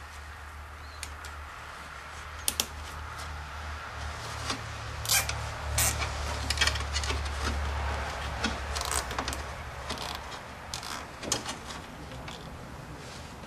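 A nylon zip tie being threaded and pulled tight around a wiring cable: scattered sharp clicks and rustles of plastic and wire in small clusters, over a low steady hum.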